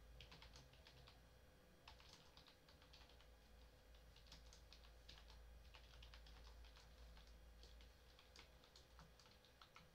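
Faint computer keyboard typing: irregular runs of quick keystrokes with short pauses between them, over a steady faint hum.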